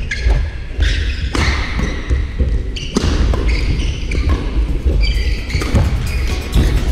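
Doubles badminton play in a large sports hall: irregular sharp knocks and thuds of racket strikes and footfalls over a steady low hall rumble, with a few short squeaks.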